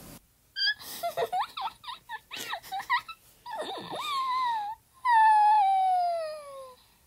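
Eerie wailing and moaning voice: a run of short wavering cries, then one long wail that slides steadily down in pitch and fades, about five seconds in.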